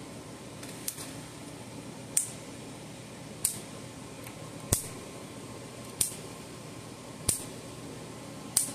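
Gallagher B80 electric fence charger pulsing, a spark snapping across a small air gap between a wire and its terminal on each pulse: seven sharp snaps about 1.3 seconds apart, the first one weaker. The regular, sharp snaps show the repaired charger, fitted with a new capacitor, firing properly.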